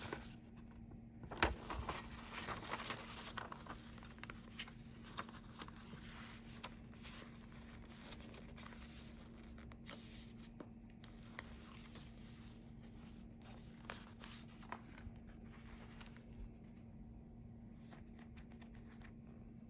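Sheets of old paper rustling and crinkling as they are handled and journal pages are turned, busiest and loudest in the first few seconds, then softer scattered rustles and taps.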